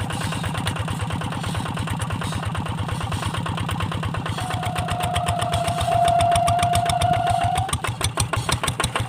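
Kubota Quick G1000 hand tractor's single-cylinder diesel engine running steadily with an even beat, the tractor bogged in deep paddy mud. A steady high tone sounds over it for about three seconds in the middle.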